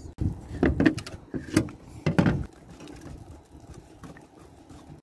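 Wooden spoon stirring pancake batter in a glass mixing bowl, knocking against the glass several times in the first two and a half seconds, then stirring more quietly.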